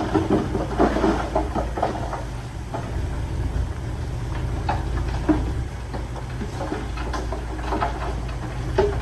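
Heavy diesel construction machine running at a low, steady drone, with irregular clanks and knocks of metal and stone, busiest in the first couple of seconds.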